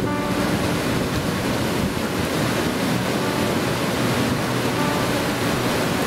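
Muddy flash-flood surge rushing down a stony river bed: a steady, loud rush of churning, silt-laden water tumbling gravel and rocks.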